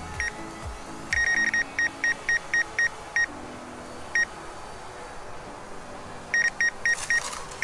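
DJI Mavic Air obstacle-sensing warning beeps from the DJI flight app: runs of short, high, identical beeps, about four a second, with a single beep between two runs. They signal that the drone's sensors detect a tree close ahead, a few metres off.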